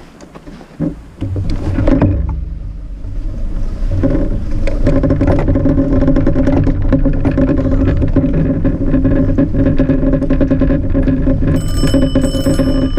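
Cargo bike ridden over packed snow: a steady humming rumble with constant small rattles, building over the first few seconds. Near the end a bicycle bell rings twice.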